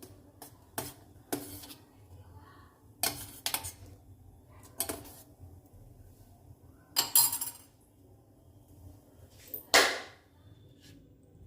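Kitchen utensils clinking and clattering, a string of separate sharp knocks of metal or crockery, with two louder clatters in the second half.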